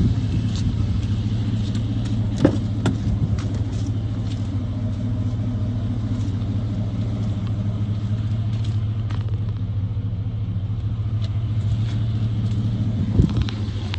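2003 Chevrolet Avalanche's 5.3-litre V8 idling with a steady low hum. A couple of brief clicks come over it, about two and a half seconds in and near the end.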